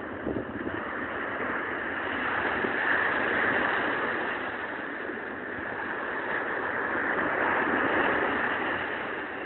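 Sea surf breaking on a sandy shore, a steady wash that swells twice as waves come in, about three seconds in and again near eight seconds.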